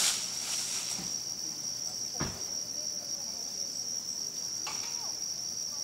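Insect chorus outdoors: one steady, high-pitched trill that runs unbroken, with a single dull thump about two seconds in.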